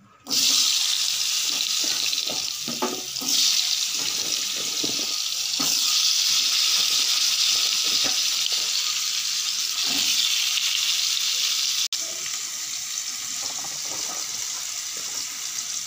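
Hot oil in a kadai sizzling as raw potato chunks are dropped in one by one, with a few short knocks of pieces landing in the first few seconds. The sizzle cuts out for an instant about twelve seconds in and goes on a little quieter.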